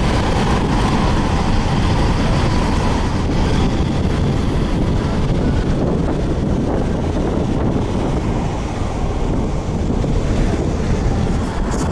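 Steady road and wind noise inside a car's cabin while it drives at motorway speed, a low, even rumble with no change.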